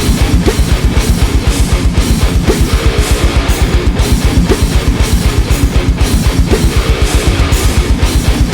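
Heavy metal music: distorted electric guitar over a fast, steady kick-drum pulse of about eight beats a second.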